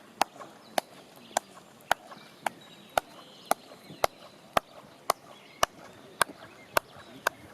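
Hand claps repeated at an even pace, about two a second, each sharp and short: clapping at Chichén Itzá's El Castillo pyramid, done to draw the site's famous chirping echo from its stairs.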